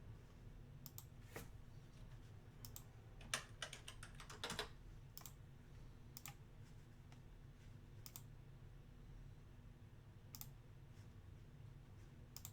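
Faint, scattered light clicks and taps, with a quick run of them about three to four and a half seconds in, over a low steady room hum.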